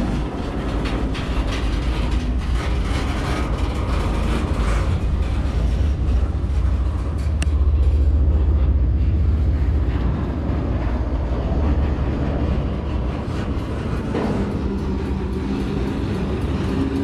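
A train passing with a steady low rumble that swells to its loudest about eight seconds in.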